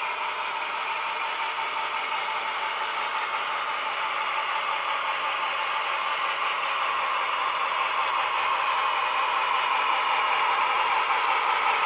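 Model B&O SD-9 diesel locomotives hauling a freight train, their wheels and motors running along the layout's track as a steady rolling rattle that grows louder as the train approaches.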